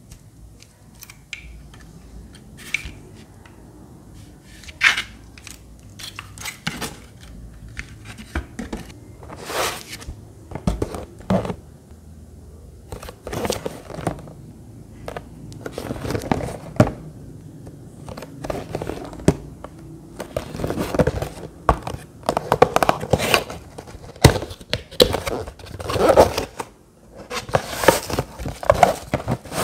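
Scattered clicks and taps from a plastic clip-on desk fan and its cardboard box being handled. From about twenty seconds in comes louder, denser rustling and crinkling as a cardboard box is opened and the wrapping around the fan inside is pulled about.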